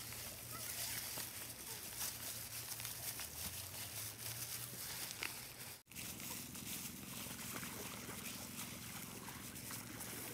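Wet squelching and sloshing of plastic-gloved hands kneading a marinated whole chicken in a plastic basin, over a steady background hiss. The sound drops out briefly about halfway through.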